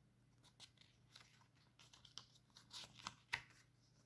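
Pages of a CD booklet turned and handled: faint paper rustles and small clicks, with one sharper click a little past three seconds in.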